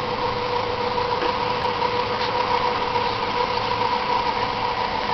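Power soft top of a mid-1990s Ford Mustang convertible folding down, its pump motor running with a steady whine.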